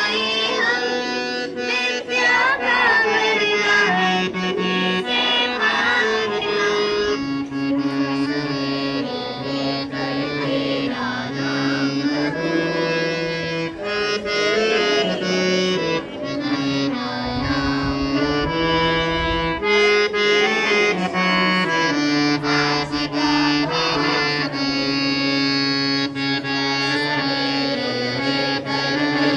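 A school music band playing a song: a held, reedy keyboard melody moving in steps from note to note.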